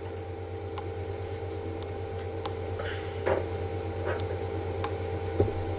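Steady low hum with a few faint, scattered clicks of a computer mouse as a copied group is dragged in Illustrator.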